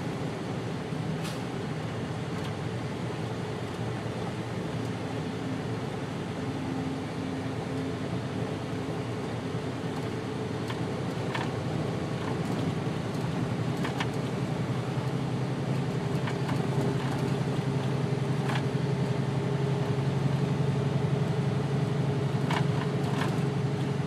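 Truck engine running steadily, heard inside the cab as the truck drives slowly, with a low hum that grows louder about halfway through. A few faint clicks are heard along the way.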